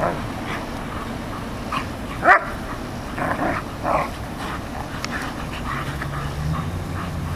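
An Airedale Terrier and a yellow Labrador play-fighting and barking: one sharp, loud bark about two seconds in, then a quick run of shorter barks over the next two seconds.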